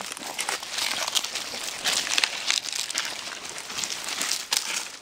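Dry fallen leaves crunching and rustling in a dense run of small crackles.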